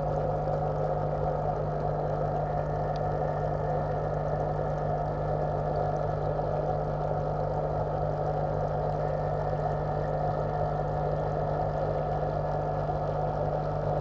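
Steady, unchanging hum of an aquarium pump, heard underwater through the tank water, a low drone with a hiss above it.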